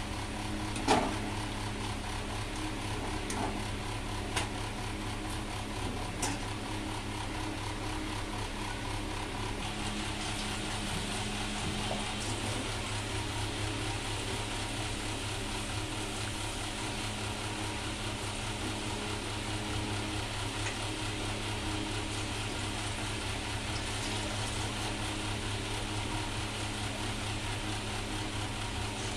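Hot oil sizzling in a kadai as balls of palm-fruit batter (taler bora) are dropped in to deep-fry, the sizzle growing louder about ten seconds in. Before that come a few sharp clinks of a metal slotted spoon against the pan, the loudest about a second in, over a steady low hum.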